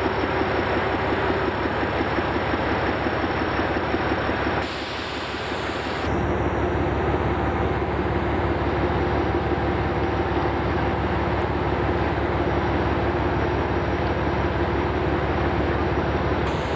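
Narrow gauge diesel locomotive engine running steadily with a fast low throb. The sound drops briefly about five seconds in, then carries on.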